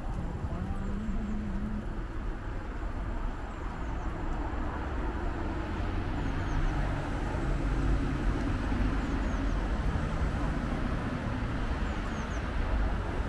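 Street traffic in a city: cars passing, a steady rumble of engines and tyres that swells a little around the middle, with a brief voice at the start.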